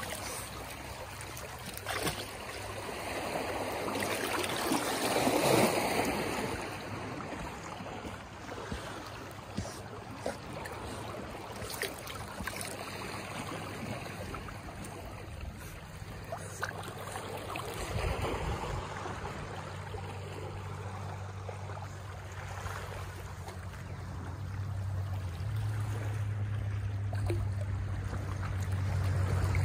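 Shallow seawater lapping and splashing around a swimming dog, with small sharp splashes scattered through it and a louder swell about five seconds in. A low steady hum builds up near the end.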